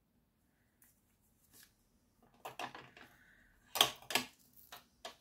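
Adhesive tape being cut with scissors: some short rustles of the tape, then a few sharp scissor snips about four seconds in, the loudest sounds here, and one more click near the end.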